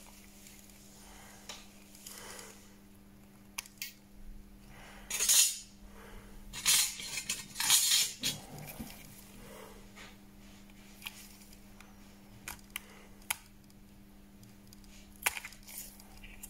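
Small repair tools clicking, tapping and scraping against a smartphone's parts during screen-replacement work. There are scattered sharp clicks and a cluster of louder scrapes and rattles about five to eight seconds in.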